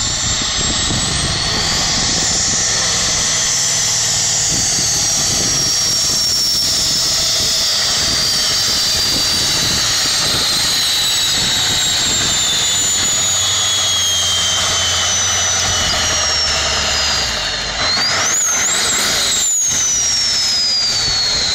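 Modified diesel pulling tractor running flat out while dragging a weight sled, a heavy steady engine note under a high whine that slowly falls in pitch as the load builds. Near the end the whine jumps up briefly and then falls away.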